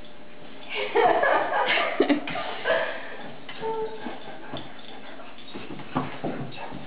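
Two Greater Swiss Mountain Dogs play-fighting: a burst of rough play growling and grumbling from about a second in, then scuffling with claws clicking on tile, and another short growl near the end.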